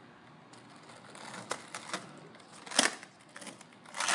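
Skateboard wheels rolling over concrete, then the board clacking hard against the ground about three seconds in and again near the end: a failed attempt at a frontside 180, not landed.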